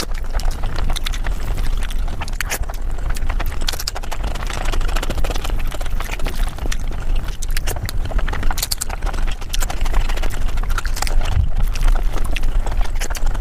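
Close-miked eating of paneer butter masala sped up to five times normal speed: chewing and wet mouth smacks turned into a rapid, unbroken run of clicks.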